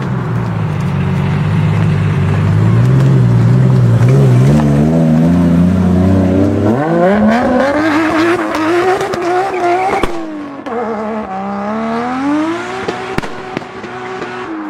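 Mk4 Toyota Supra's straight-six engine running at low revs, then revving hard about seven seconds in, its pitch climbing steeply as the rear tyres spin and squeal. The sound cuts off abruptly near ten seconds, and the engine revs up again as the car pulls away.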